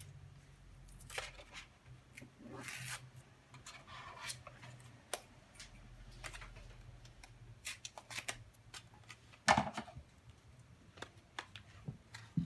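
Irregular rustling, crinkling and small clicks of toy packaging being handled and opened, with the loudest rustle just before the end, over a faint steady low hum.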